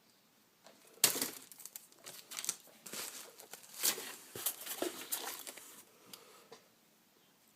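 Packaging crinkling and rustling as it is handled and opened, in irregular bursts that start about a second in and stop about six seconds in.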